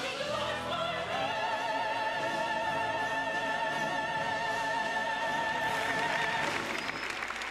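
Choir and orchestra singing one long held final note with vibrato, with the voices rising onto it at the start. The note ends about six and a half seconds in, and applause begins near the end.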